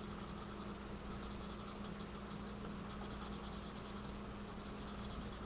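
Light Crumb Cake Stampin' Blends alcohol marker rubbing on card stock in runs of rapid, short, scratchy strokes, faint.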